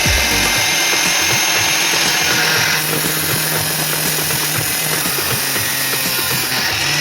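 A power tool running steadily, a high whine over a hiss, its tone shifting about three seconds in.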